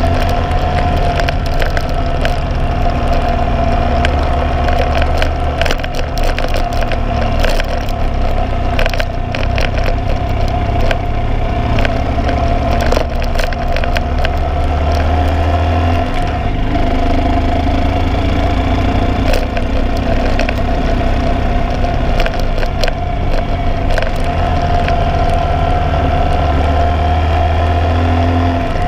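Motorcycle ridden at a steady cruising speed, its engine a steady drone under heavy wind rumble and crackling on the onboard microphone.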